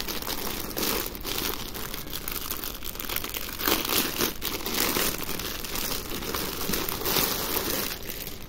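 Thin clear plastic bag crinkling as hands handle it and pull it off folded cloth trousers, in uneven swells. The crinkling dies away near the end.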